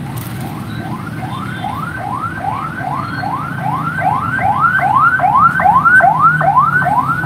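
A siren sounding a fast, repeating rising whoop, about three a second, growing louder over a low rumble of traffic.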